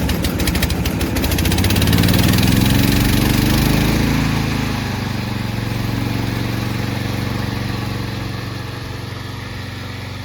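Remote-control lawn mower's petrol engine being started with its electric starter: rapid even cranking for about the first second and a half, then the engine catches, revs up and settles back to a steady idle.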